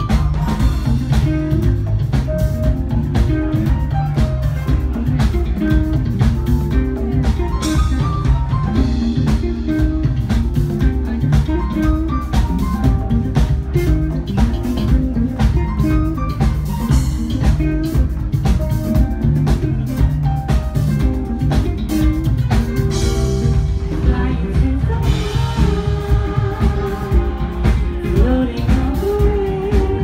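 Live jazz-funk band playing loudly: bass guitar and drum kit driving a steady groove under electric guitar and keyboards, with heavy bass.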